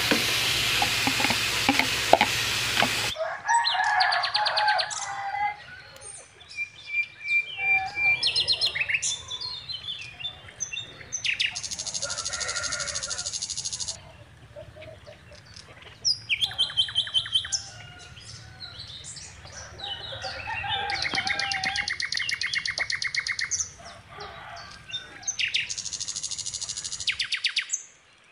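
Meat sizzling on a grill pan for about three seconds, then birds chirping with fast, buzzy trills in repeated bursts of a second or two.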